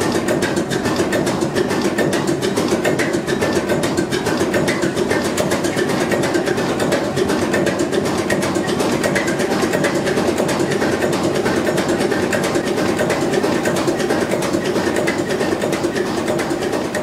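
Deutz RV6M 536 six-cylinder slow-speed marine diesel running steadily, heard close up in its engine room: a loud, even drone with a fast, regular clatter over it.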